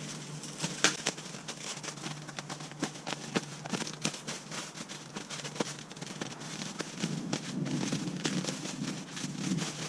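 Plastic packaging wrap crinkling and crackling as it is cut and pulled away, with a dense run of small sharp clicks.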